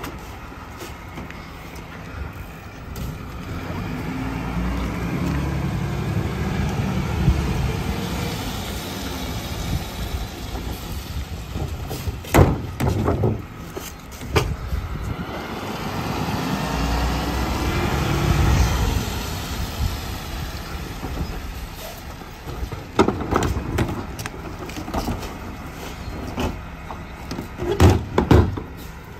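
Rear-loader garbage truck's engine revving up twice to drive the hydraulic packer as it compacts the load, each swell lasting several seconds. Sharp bangs of plastic trash carts being knocked against the hopper come in between and near the end.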